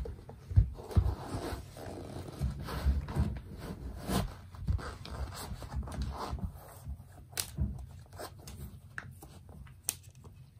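Fila Disruptor trainers being put on and laced up: soft rustling as the laces are pulled through the eyelets and tightened, with scattered small clicks and taps as the shoes are handled on a wooden floor, busier at first and sparser later.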